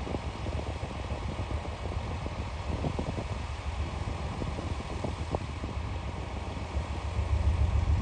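Diesel engines of a two-car diesel railcar train running as it pulls away, a low steady rumble with a few light clicks from the wheels and track. The rumble swells near the end.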